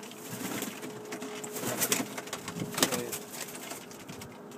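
Domestic pigeons cooing, with two sharp bursts of wing flapping about two and three seconds in.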